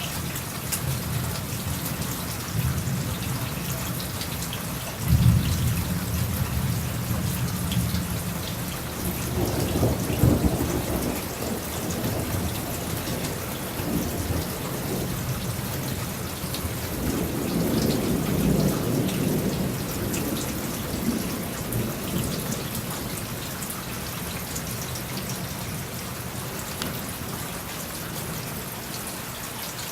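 Thunderstorm: steady rain with thunder, a sudden loud clap about five seconds in, another strong peak around ten seconds, then a long rolling rumble past the middle.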